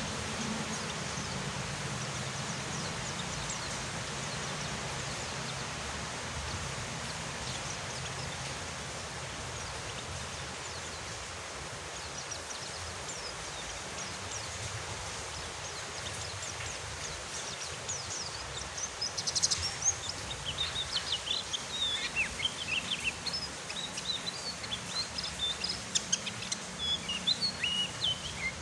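Steady rain hiss, and from about two-thirds of the way through a pleci (white-eye) breaks into fast, high twittering, short sharp chirps that grow busier toward the end.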